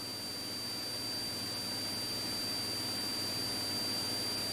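A steady high-pitched electronic whine over a faint even hiss.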